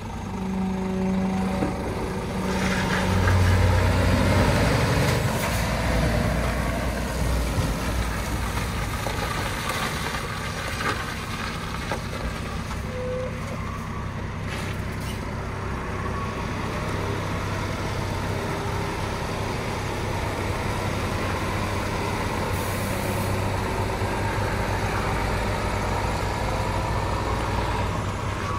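Diesel engine of a Scania G410 tipper truck running, louder for a couple of seconds about three to five seconds in.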